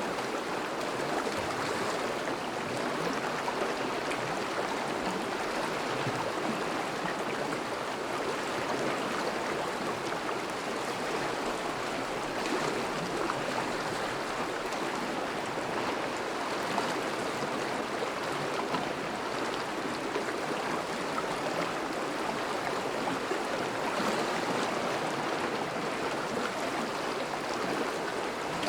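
River water flowing over and around breaking ice at a spring thaw: a steady, even rush of moving water.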